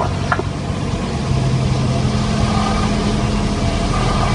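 Cessna 172's piston engine and propeller droning steadily, heard from inside the cockpit. The engine note shifts a little over a second in and grows slightly louder.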